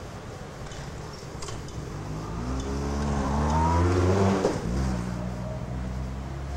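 Diesel shunting locomotive's engine revving up as it moves off, its pitch climbing for about two seconds, then throttled back suddenly about four and a half seconds in to a steady lower run.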